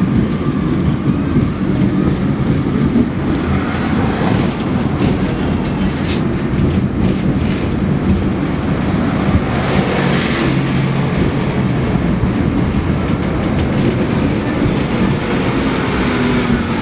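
Hong Kong double-decker electric tram running along its street track, heard from the upper deck: a steady low rumble with a few clacks from the wheels on the rails.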